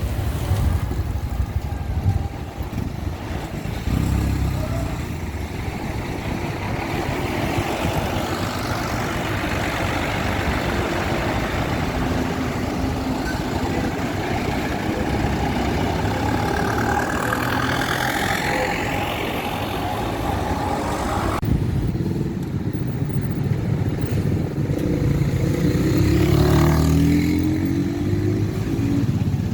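Road traffic with buses and other heavy vehicles passing and accelerating, the engine pitch rising as they go by. About two-thirds of the way through the sound changes abruptly.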